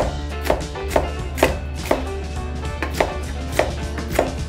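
Kitchen knife slicing carrots on a chopping board, the blade knocking on the board about twice a second.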